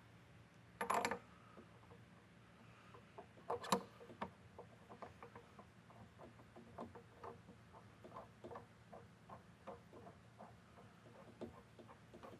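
Metal clicks and clanks of a can seamer's chuck tooling being threaded back onto its stainless steel shaft. There are a couple of louder clatters near the start, then a steady run of light ticks, a little under three a second.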